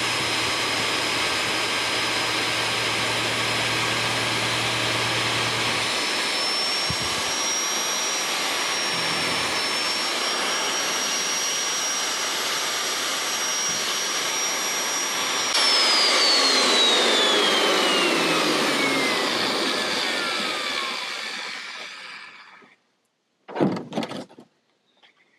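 Magnetic-base drill running steadily with a high whine as it drills a bolt hole through a cast-iron tractor flywheel. About fifteen seconds in, its motor is switched off and winds down, the whine falling in pitch as it fades over several seconds. Two short knocks follow near the end.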